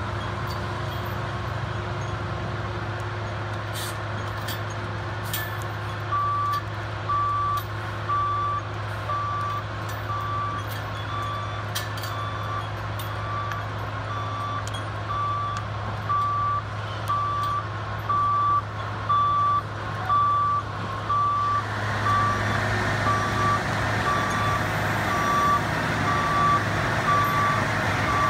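Diesel logging truck's engine running as it backs up. Its back-up alarm starts beeping steadily about six seconds in, roughly three beeps every two seconds. The engine grows louder near the end.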